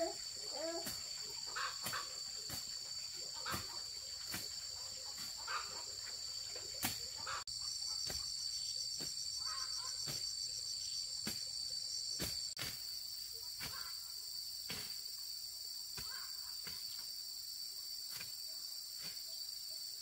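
Steady high-pitched chorus of insects, with scattered light clicks and taps over it.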